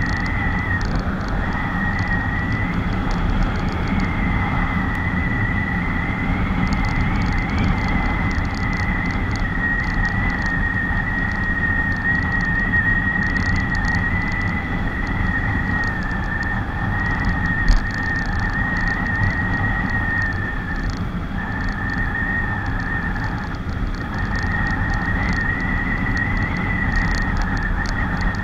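Yamaha FZ V2.0's single-cylinder engine running steadily at highway cruising speed, around 85–90 km/h, under heavy wind rumble on the microphone, with a steady high whine that wavers slightly. There is one brief thump about two-thirds of the way through.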